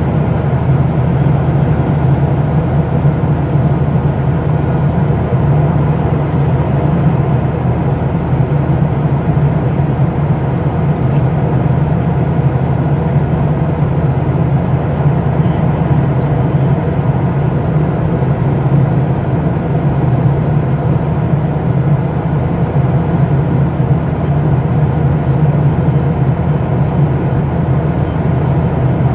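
Steady cabin noise of an airplane in flight: an even drone of engines and rushing air, heaviest in a low hum, with no change throughout.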